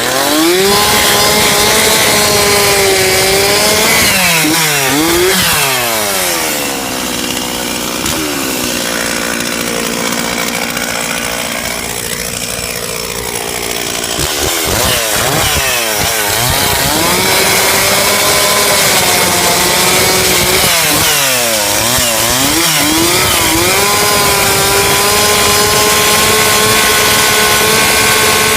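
Gas chainsaw running at high throttle, cutting a felled tree into firewood lengths. The engine note drops and climbs back several times as the throttle is eased off and opened again. In a long stretch in the middle the note is lower and rougher, as it is when the chain is loaded in the cut.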